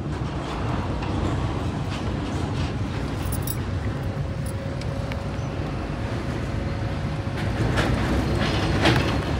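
Steady low road and engine rumble of a car heard from inside its cabin, with a few louder rustles and knocks near the end.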